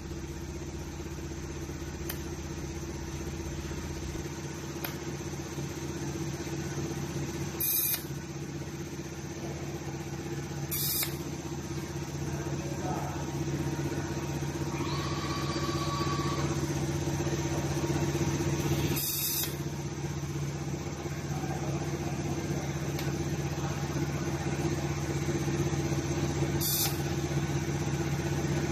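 Robotic arc welder at work: a steady buzzing, hissing arc over the hum of factory machinery, with a few short sharp clicks.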